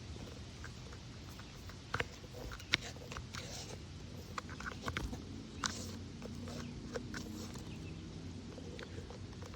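Scattered light scraping and sharp clicks of wood chips being cleared out of a freshly bored hole in a tree trunk, with a couple of louder clicks about two seconds in.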